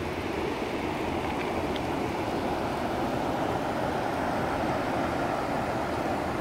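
Steady, even rushing of Nevada Fall, a large waterfall heard at a distance, with a low wind rumble on the microphone.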